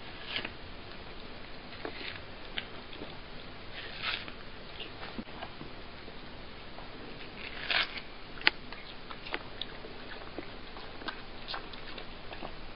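A cat biting and chewing watermelon flesh: irregular wet crunches and clicks, the loudest a short crunch a little past the middle followed by a sharp click.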